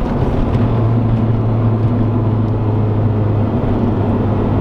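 Turbocharged Saab car driving, heard from inside the cabin: a steady engine drone over road noise, strongest from about half a second to three and a half seconds in.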